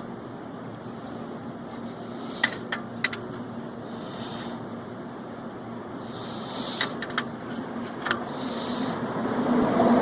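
Small metal parts clinking: a few sharp clicks in two clusters, about two and a half seconds in and again around seven to eight seconds, as the wrench and drain nut are handled while scooter engine oil drains, over a steady background hum.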